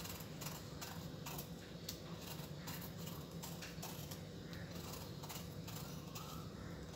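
Kitchen knife paring the skin off a ridge gourd: a run of short, irregular scraping cuts, a few a second, over a faint steady low hum.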